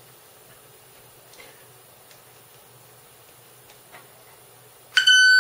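A few faint clicks over low background noise, then near the end a loud, steady 1510 Hz test tone cuts in abruptly from a speaker driven by a PAM8403 class D amplifier board, starting with a click.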